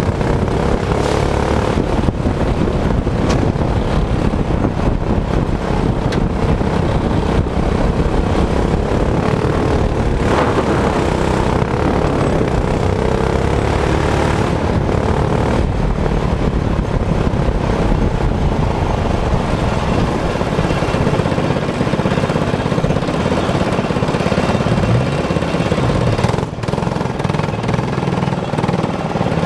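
Go-kart engine running hard while the kart is driven at speed, heard from the driver's seat; the engine note wavers with the throttle and dips briefly near the end.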